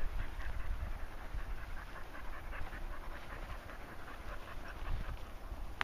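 A dog panting quickly and steadily, in short, evenly spaced breaths, with a low rumble underneath.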